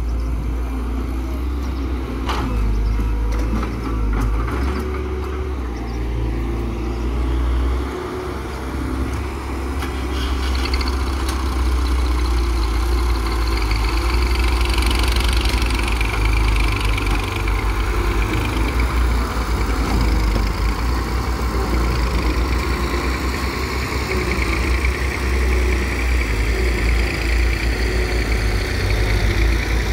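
Diesel engines running steadily: a farm tractor and a Hyundai Robex 1300W wheeled excavator. From about ten seconds in the tractor's engine gets louder as it drives close by.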